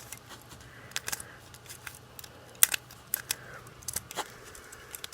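Plastic clicks of a Qiyi 1x3x3 cube being turned by hand, its faces clicking into place. About a dozen short, sharp clicks come at irregular intervals.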